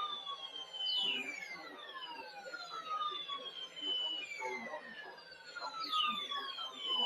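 Weather radio receiver giving out electronic whistles: several overlapping tones slide slowly down in pitch, and a fresh set starts sharply about every five seconds, over a faint hiss.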